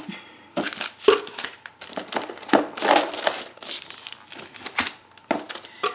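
Plastic packaging crinkling in irregular bursts as stamp sets, foil pouches and a plastic mailer bag are handled and pulled out of a box.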